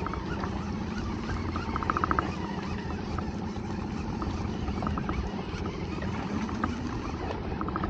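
Steady low rumble of wind and water around a small open fishing boat at sea, with a faint even hum under it. A short run of quick clicks comes about two seconds in.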